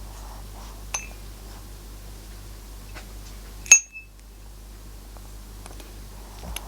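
Two sharp clinks with a short ringing over a low steady hum: a light one about a second in, and a much louder one a little past the middle.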